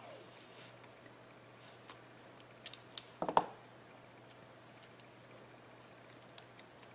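Washi tape handled and torn from the roll: a few light clicks, then a short tearing rip about three seconds in, with a couple of soft taps near the end.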